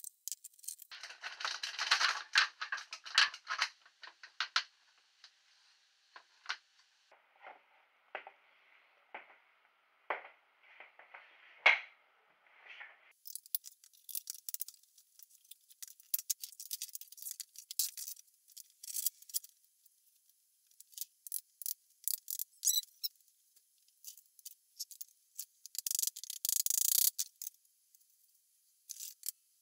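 Irregular clicks, taps and rattles of wooden frame parts and metal bar clamps being handled and set. From about 13 seconds in, the clicks turn thin and high-pitched.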